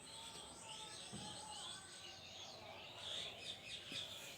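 Baby bird chirping: a run of short, high, faint chirps, busiest about three seconds in.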